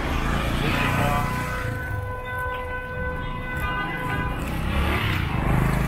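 Street traffic: motorcycle and car engines running and passing. From about a second in, a steady pitched tone holds for about three seconds over the traffic.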